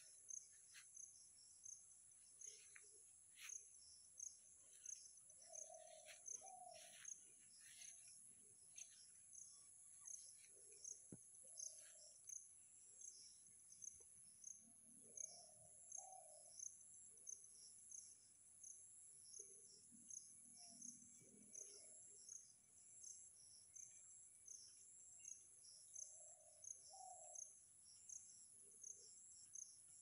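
Faint insect chorus: a steady high drone with an evenly pulsing chirp over it. A low two-note bird call recurs about every ten seconds.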